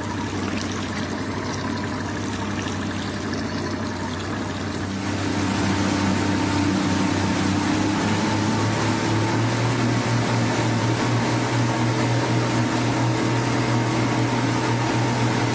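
Motorboat engine running steadily with water rushing along the hull, growing louder about five seconds in.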